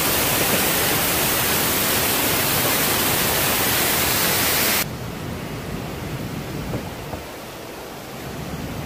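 Waterfall close to the microphone: a loud, even rush of falling water. About five seconds in it cuts to a quieter, steady rush with a few faint knocks.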